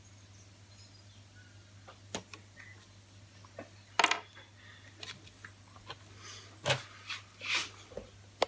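Scattered sharp clicks and light clatter of hand-handled tools and gear, the loudest about four seconds in, as a knife edge is put through rope cut testing.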